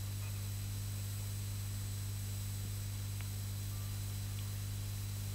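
Steady low electrical hum with an even hiss over it: the background noise of an old television soundtrack.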